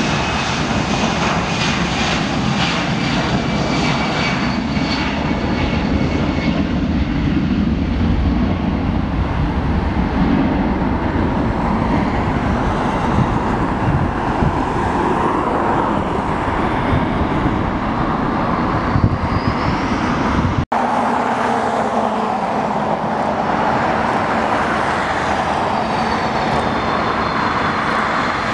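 Jet airliner engines roaring steadily, with a faint falling whine in the first part. About three-quarters of the way through the sound cuts off abruptly and another stretch of jet engine roar follows, with a rising whine near the end.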